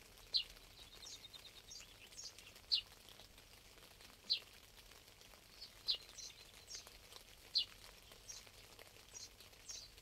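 A songbird calling: one short, high note that sweeps downward, repeated about every one and a half to two seconds, with fainter, higher chirps from other birds in between.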